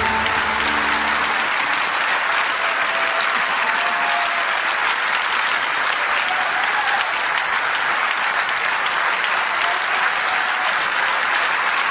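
Audience applauding steadily. The last notes of the ensemble's music die away in the first second or so.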